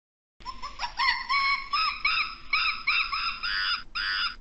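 Gibbon calling: a rising whoop, then a quick series of rising-and-falling hoots, about three a second, the last two quavering.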